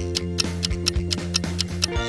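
Quiz countdown-timer sound effect: a quick, even ticking, about four or five ticks a second, over steady background music.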